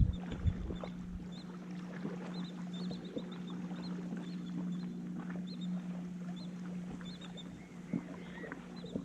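A steady low drone with a motor-like hum, and a small bird chirping in short high notes over it, about once a second.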